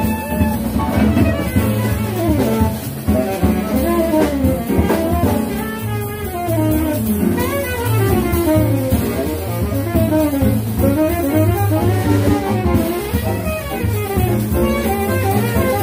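Live small-group jazz: a tenor saxophone plays fast, winding melodic runs over double bass, drum kit and piano.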